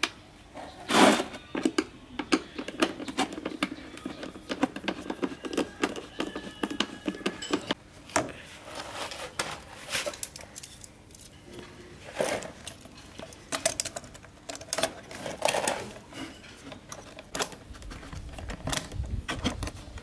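Handling and taking apart a small plastic table fan: an irregular string of clicks, knocks and light scrapes of plastic parts and tools, with a sharp knock about a second in.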